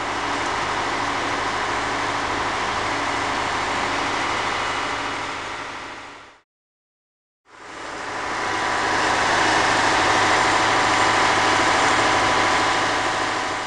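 An engine running steadily, heard in two stretches that each fade in and out, with a second of silence between them about six and a half seconds in. The second stretch is louder.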